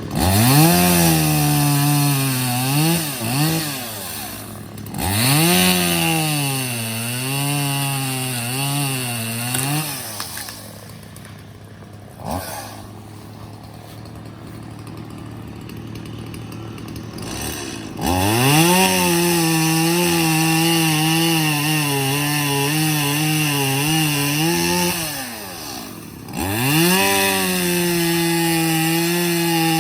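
Stihl MS170 two-stroke chainsaw revving and cutting wood, its engine pitch sagging and wavering as the chain bites, then rising again. It drops to a much quieter run for several seconds near the middle before revving up and cutting again.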